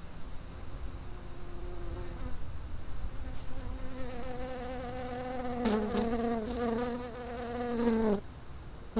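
A flying insect buzzing, its pitch wavering. It grows louder through the middle and cuts off suddenly near the end.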